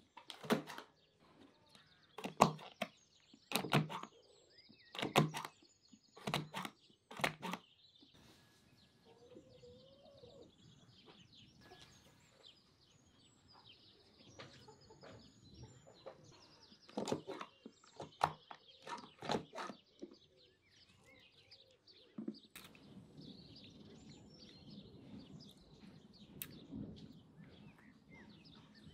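A series of sharp thunks, roughly one a second in the first quarter and a few more past the middle, with birds chirping in the background.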